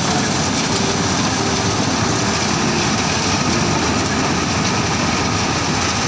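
Balkar B-546 combine harvester running steadily under load as it cuts rice: a dense, even noise from the engine and the moving cutting and threshing parts.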